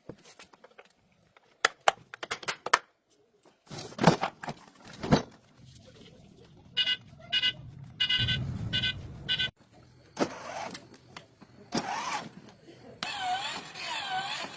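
A few clicks and knocks, then a run of short electronic beeps over a brief low motor whir, and near the end a warbling, siren-like electronic tone repeating several times.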